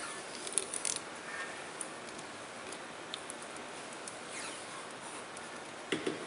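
Adhesive tape being handled and pressed around a metal bar to fix a strain gauge cable: faint crackles and small clicks, with a few sharper clicks about a second in and a short cluster near the end.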